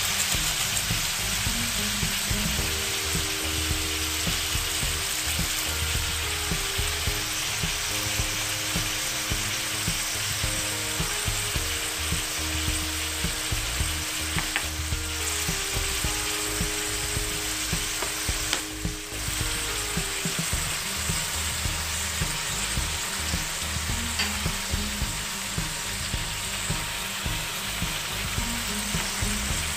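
Chicken gizzards sizzling steadily as they sauté in an aluminium wok, with a metal spoon stirring and knocking against the pan now and then.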